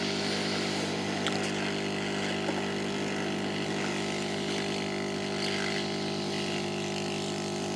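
Hot air rework station blowing hot air onto a chip: a steady blower hum with a rushing hiss of air.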